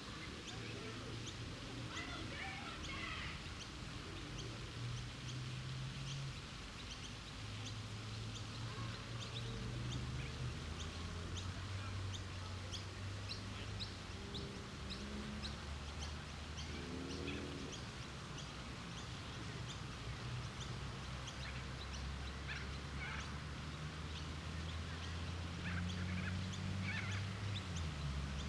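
Park ambience: many small birds chirping and calling over a steady wash of fountain water, with a low hum underneath that shifts in pitch every few seconds.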